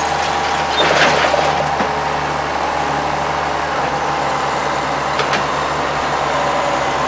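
John Deere tractor engine running steadily while working, with a short rush of noise about a second in and a sharp click a little after five seconds.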